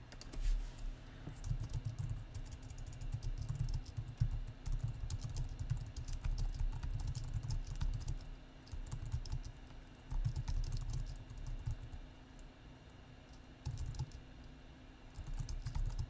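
Typing on a computer keyboard: a steady run of keystrokes, with a short lull about three-quarters of the way through before the typing picks up again.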